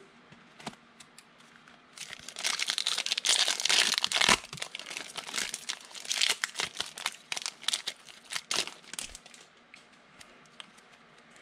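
Foil trading-card pack being torn open and its wrapper crinkled: a dense burst of crinkling about two seconds in, then scattered crinkles and ticks that thin out after about nine seconds.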